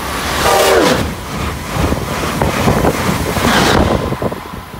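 Amtrak Acela Express high-speed electric trainset passing through a station at speed: its horn drops sharply in pitch about half a second in, then a loud rush of air and wheel noise that dies away a little before the end.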